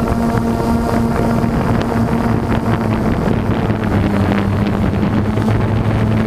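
DJI quadcopter drone's motors and propellers humming steadily, heard through the onboard camera, with propeller wash and wind buffeting the microphone.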